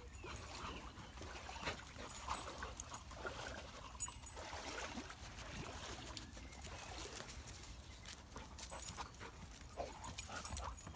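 A wet black dog moving and nosing through undergrowth close by: irregular rustling and short dog noises throughout.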